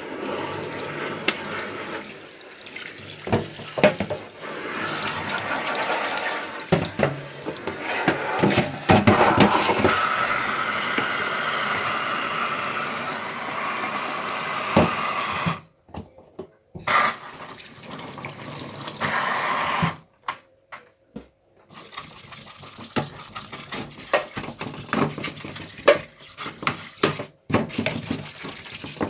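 Water running from a tap, with scattered knocks and clicks of parts being handled and rinsed under it. The flow is strongest in the first half and breaks off abruptly twice further on.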